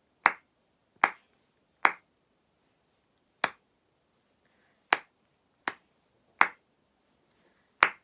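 Single hand claps beating out the rhythm of a simple beginner's recorder tune, eight sharp claps in all: three about three-quarters of a second apart, then longer gaps of about one and a half seconds between some of the later ones.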